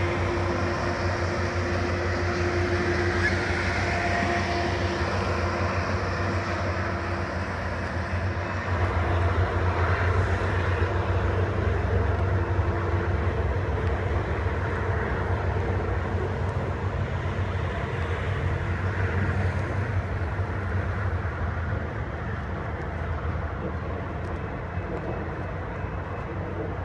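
Sound Transit Sounder commuter train's bilevel passenger coaches rolling past on the rails and moving off down the track, a steady rumble with a low drone underneath.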